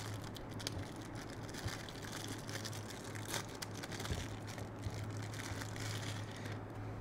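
Faint crinkling of a small plastic bag being handled and opened by hand, with a few soft clicks, over a steady low hum.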